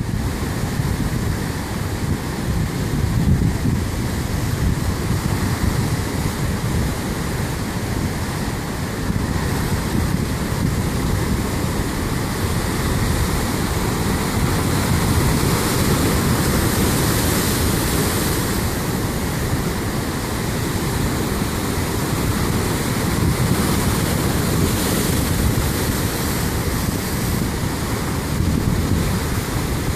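Rough storm swell breaking and foaming over black lava rocks: a continuous rushing wash of surf that swells into stronger crashes about halfway through and again later on, with wind buffeting the microphone underneath.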